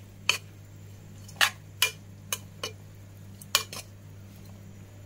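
A spoon clinking against the side of a bowl as tamarind rice is stirred and mixed: about seven short, sharp clinks at uneven intervals, over a steady low hum.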